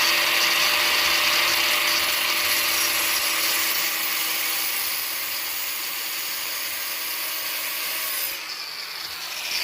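Handheld power tool running steadily, a continuous whirring noise that eases a little in loudness over the second half.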